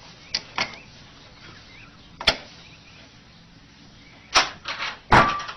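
Sharp knocks and clacks of a wooden puzzle box's latch and door being worked by a cat: two about half a second in, one at about two seconds, and a quick cluster near the end, the last the loudest.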